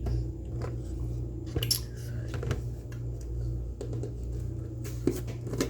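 Scattered light clicks and knocks of kitchen containers and a cup being handled, over a steady low hum.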